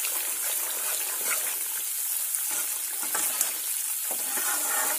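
Spice paste sizzling steadily in hot oil in a metal kadai as it is fried down, stirred with a slotted metal spatula that makes short scraping sounds against the pan now and then.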